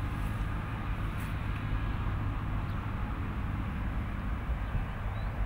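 Steady outdoor background rumble, low and unbroken, with no distinct events.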